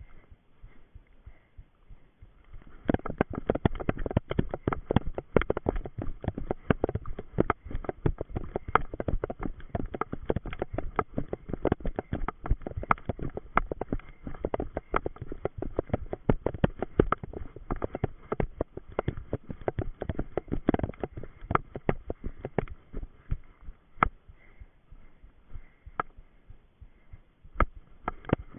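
A runner's footsteps on leaf-covered forest floor, heard as rapid, steady thumps and rustles through a body-worn action camera. The thumping starts about three seconds in and eases toward the end.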